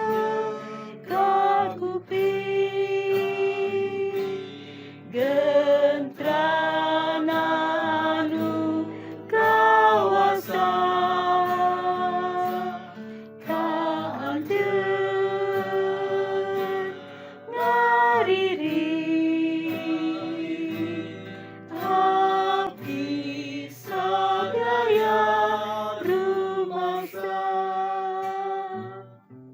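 A hymn sung slowly in long held notes, accompanied by acoustic guitar.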